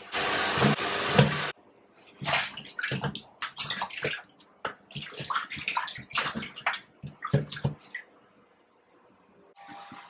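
Kitchen faucet spraying into a bowl of water, cut off after about a second and a half. Then hands swish and rub snake gourds in the water-filled bowl, with irregular splashes and knocks against the bowl, until near the end.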